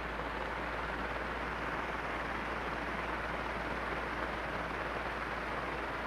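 Electric fan running steadily on its second speed setting: an even rush of air with no change in level.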